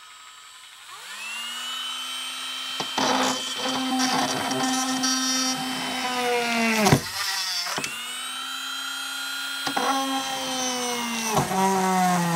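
Cordless Dremel 8220 rotary tool spinning up with a rising whine and drilling into the underside of a toy car, with grinding and scraping as the bit bites. Its pitch drops away sharply twice, once about seven seconds in and again near the end, each time winding back up moments later.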